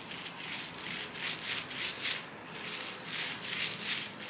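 Wooden stick scraping and spreading wet Jesmonite mix across a plastic sheet, a run of short rubbing strokes about three a second.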